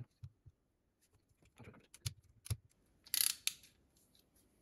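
Ratcheting crimping tool clicking as its handles are squeezed to crimp an insulated spade connector onto a heater-mat wire: a series of sharp separate clicks, then a louder, longer rasp about three seconds in.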